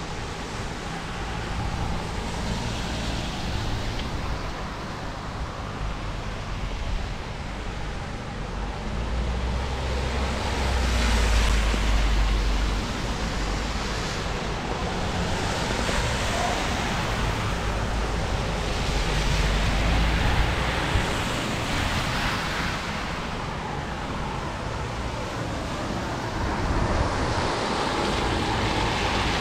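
Rain and wet-road traffic: tyres of passing cars hissing on wet asphalt in several swells over a steady rain wash, with low wind rumble on the microphone.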